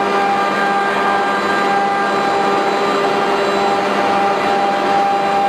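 1325 ATC CNC router spindle routing a raised-panel pattern into a door blank: a steady whine over the continuous hiss of the bit cutting.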